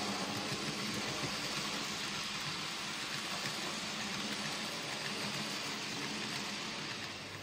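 Model train coaches rolling along the track: a steady rumble of wheels on rail with a low hum. It drops off near the end as the last coach passes.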